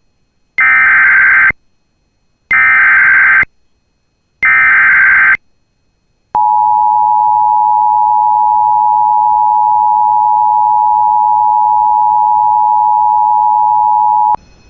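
Emergency Alert System tones: three one-second bursts of screeching SAME header data, each about two seconds apart, then the two-tone attention signal held steady for about eight seconds, announcing a severe thunderstorm warning.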